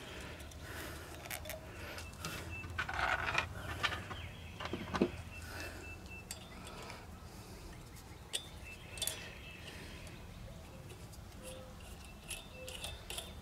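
Light clicks and clinks of small metal engine parts handled by hand: a carburetor spacer, gasket and nuts being worked off the intake studs of a small engine. There are a few sharper clinks about three and five seconds in.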